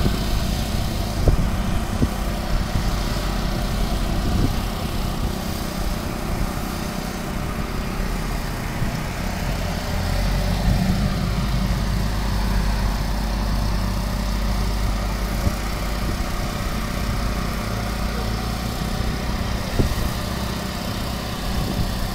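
A small engine running steadily with a low rumble.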